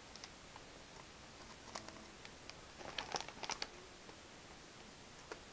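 A crunchy molasses spice cookie being chewed: scattered crisp crunches, bunched together about three seconds in.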